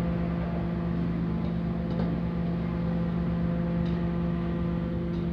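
Steady drone of a commercial wok range, its gas burner and extraction fan running, with a few faint clinks as a metal ladle stirs food in the wok.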